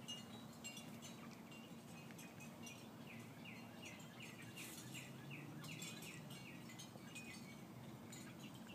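Faint birdsong: a small bird repeating a series of short falling notes, about three a second, thickest through the middle, with scattered high chips.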